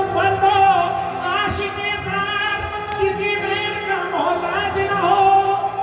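Qawwali music: a voice sings a wavering, ornamented line over steady held harmonium tones and hand-drum strokes.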